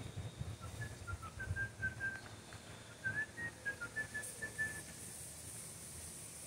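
A run of about a dozen short whistled notes, stepping up and down in pitch like a tune, that stops about five seconds in. A steady high hiss comes in about four seconds in.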